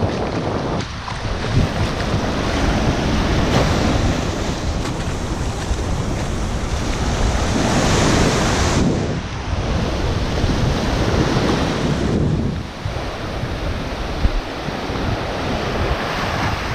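Small surf breaking and washing up a sandy shore in a steady hiss that swells and ebbs with each wave, loudest about eight seconds in. Wind buffets the microphone with a low rumble underneath.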